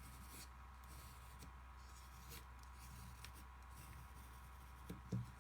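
Faint scratching of a drawing stroke on folded paper, in a few short soft strokes, over a low steady hum, with a couple of soft knocks near the end.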